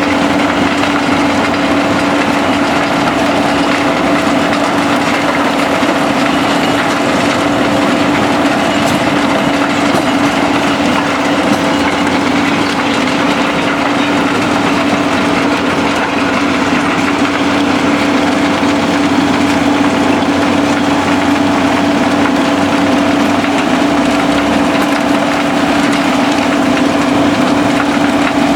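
SBM mobile impact crusher running and crushing concrete rubble, with diesel machinery: a loud, steady drone with a constant hum that does not let up.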